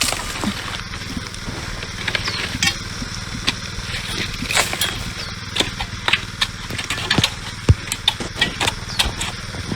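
A small petrol engine running steadily, as on a walk-behind concrete power trowel, with scattered light clicks and knocks.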